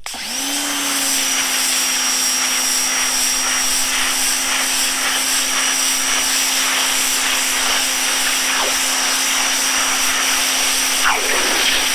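Ryobi 1600 PSI electric pressure washer running. Its motor and pump spin up as the trigger is pulled and then hold a steady hum under the loud hiss of the water jet spraying fabric lying on concrete. It shuts off at the end.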